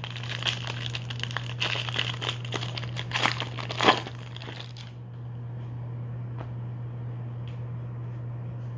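Bowman Draft trading-card pack's foil wrapper crinkling and tearing as it is torn open by hand, with the loudest crackle about four seconds in. The crinkling stops after about five seconds, leaving a few faint clicks as the cards are handled.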